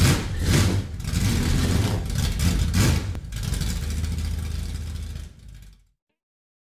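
Logo intro sound effect: a loud rumbling noise with several whooshing swells, which fades out about five and a half seconds in and is followed by silence.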